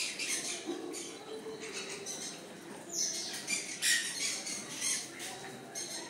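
Aviary birds squawking and calling in short, scattered bursts, the loudest about three to four seconds in, with a brief falling high call among them.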